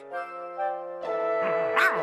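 Cartoon background music: a short run of held notes, then a sustained chord. From about a second and a half in, puppies yap over it.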